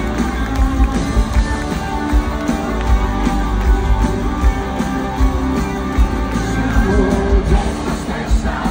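Live rock band playing loud in an arena, with electric guitars over a steady drum beat and a voice singing. It is heard from inside the crowd, so the sound is loud and echoing.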